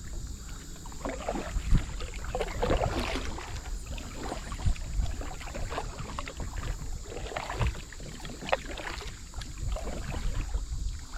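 Kayak paddle strokes splashing and dripping in the river, coming in irregular bursts.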